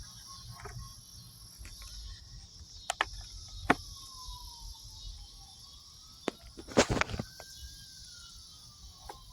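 Sharp clicks and knocks of a hard cosplay helmet being adjusted by hand, the loudest cluster about seven seconds in, over a steady chorus of insects. A faint tone slowly rises and then falls through the middle of it.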